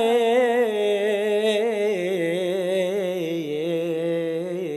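Solo male voice singing a long melismatic vowel in a Syriac church hymn, the pitch wavering in rapid ornaments and stepping down twice as the note is held without a break.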